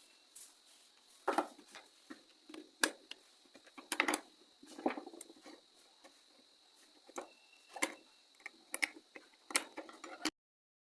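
Irregular plastic clicks and taps of a Nokia keypad phone being taken apart by hand, housing parts unclipped and handled, about a dozen sharp clicks spread over the seconds. The sound cuts off suddenly near the end.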